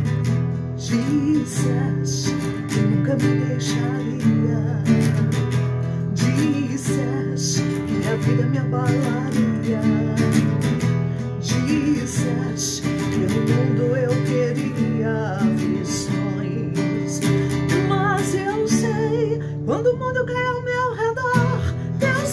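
Acoustic guitar strummed in a steady rhythm, playing chords as the introduction to a worship song.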